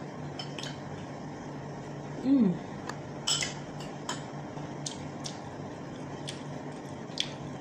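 Mukbang eating sounds: scattered sharp clicks and soft squishing as food is picked up by hand from the dishes and chewed, over a steady low hum. About two seconds in comes a short falling vocal 'mmm', the loudest sound.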